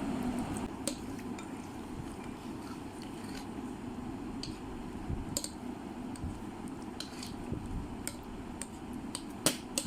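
Glue slime being stirred in a bowl as activator is mixed in: soft squishing with scattered small clicks and taps, two sharper clicks near the end.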